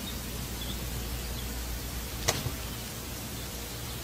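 Outdoor ambience from a wildlife video playing on a laptop: a steady hiss over a low hum, with a few faint high chirps and one sharp click about two seconds in.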